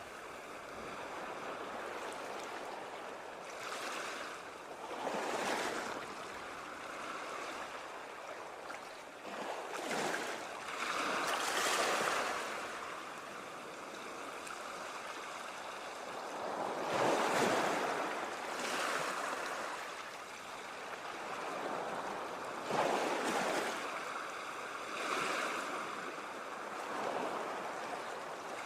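Ocean waves breaking and washing on shore: a steady rushing wash that swells into louder surges every few seconds, the biggest about two-thirds of the way through.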